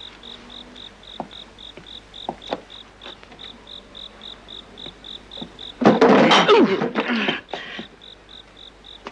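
Crickets chirping in an even, high pulse, about three chirps a second, with a few faint small knocks. About six seconds in, a loud, harsh burst of noise with wavering pitch lasts about two seconds and drowns out the chirping.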